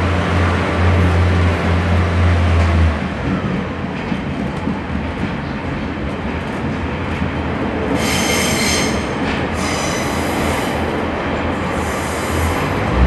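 Inside a Class 142 Pacer diesel railbus on the move: a low engine drone that drops away about three seconds in, leaving the steady rumble of the running train. High-pitched wheel squeal comes in three short stretches from about eight seconds on.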